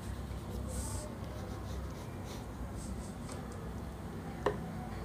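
Oil pastel being stroked across drawing paper: faint, scratchy colouring strokes, with one sharp click near the end.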